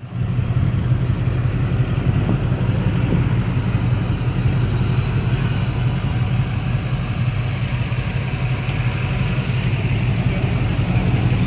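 Pickup truck engine running steadily and evenly, with no clear revving.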